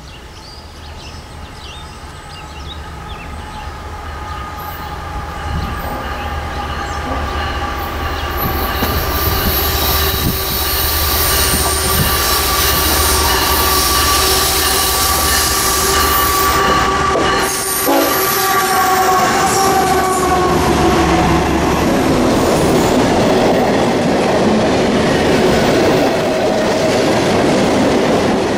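Freight train approaching and passing at speed. The lead diesel locomotive's horn sounds as one long chord, growing louder over the first ten seconds, and its pitch drops as the locomotive goes by about twenty seconds in. After that the cars rush past with wheel clatter.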